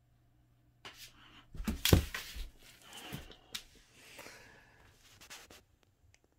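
A boxer dog sniffing and snuffling at the floor, with claws clicking on laminate and a loud thump about two seconds in.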